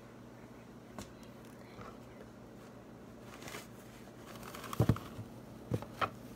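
Objects being handled and set down close to the microphone: a light click and a brief rustle, then several knocks on the counter, the loudest a quick pair about three-quarters of the way through.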